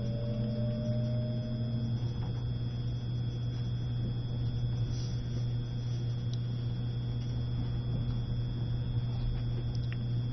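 Steady low hum with a constant thin high-pitched whine, heard on board an E653 series electric train running at reduced speed (about 20 km/h) under a strong-wind restriction. A faint, slightly rising tone fades out about two seconds in.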